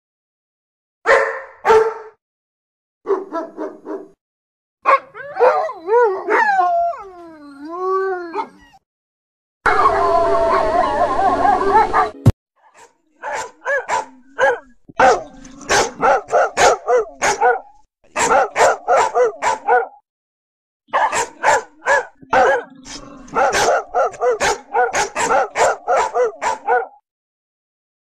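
A run of separate dog sound-effect clips. It opens with a couple of barks and quick yips, then a howl that bends up and down in pitch, then a harsher, denser stretch that cuts off sharply. Through the second half comes fast, repeated barking, several barks a second, in three runs with short gaps between them.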